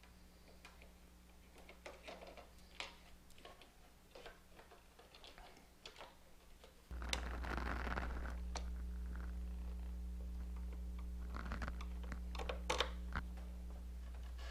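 Light, scattered clicks and taps from small plastic parts and screws of a motorcycle turn-signal housing being handled. Under them runs a steady low hum that jumps suddenly louder about seven seconds in.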